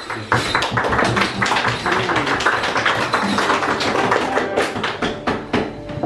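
Audience applause: a dense run of hand claps following a spoken introduction of the musicians.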